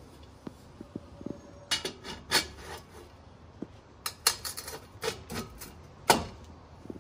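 Metal clinking and scraping as a painted steel exhaust tip is pushed and worked onto a stainless muffler outlet pipe by hand, with scattered sharp knocks, the loudest about six seconds in.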